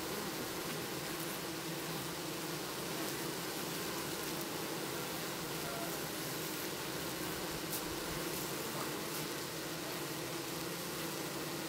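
Honeybees buzzing: a steady hum over a constant hiss.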